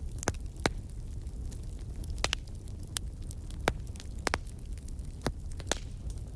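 Fireplace fire crackling: irregular sharp pops, about one or two a second, over a low steady rumble.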